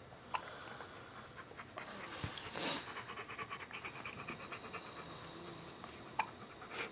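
A dog panting rapidly, with two short sharp clicks, one just after the start and one near the end.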